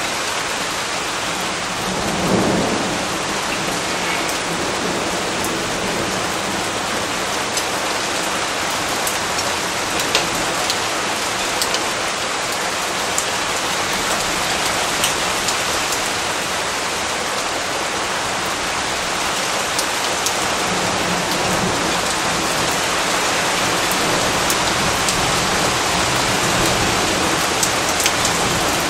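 Steady, heavy rain falling, with scattered sharper drop ticks and a brief deeper swell about two seconds in.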